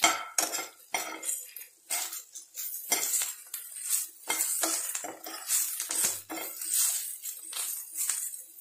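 Metal spoon scraping and clinking against a frying pan as pan-roasted green chillies are stirred and turned, in many short, irregular strokes.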